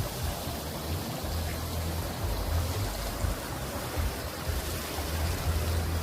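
Flowing water rushing steadily, with an uneven low rumble underneath.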